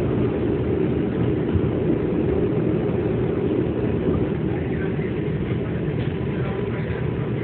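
New York City subway train heard from inside the car: a steady low rumble of wheels on elevated track, easing a little as the train runs alongside a station platform. A few faint high squeaks come in the second half.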